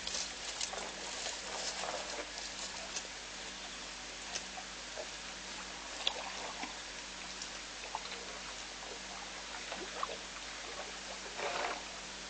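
Elephant browsing in a thorn bush: scattered faint snaps and crackles of twigs and leaves over a steady hiss, with a brief louder rustle near the end.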